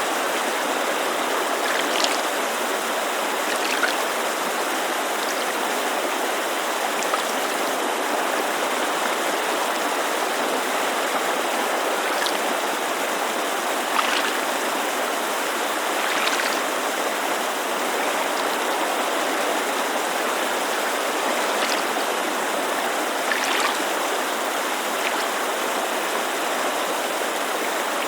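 Steady rushing of a mountain creek, with small waves lapping at a lake shore in short splashes every few seconds.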